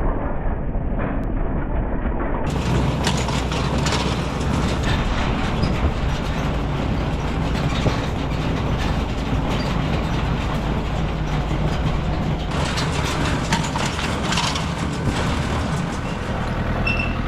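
Tractor pulling a small square hay baler, running steadily with constant rattling and clattering from the baler and hay wagon.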